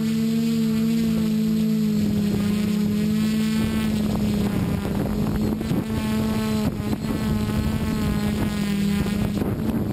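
Multirotor drone's motors and propellers running steadily as it climbs, a strong hum with higher overtones that shift in pitch every few seconds, with wind buffeting the onboard microphone.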